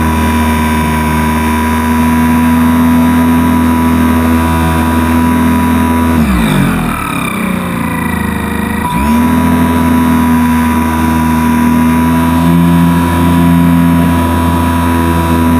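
HobbyZone Super Cub RC plane's electric motor and propeller running with a steady whine, heard up close from on board over a haze of wind noise. About six seconds in, the motor is throttled back and its pitch slides down; about three seconds later it is powered up again and the pitch jumps quickly back up.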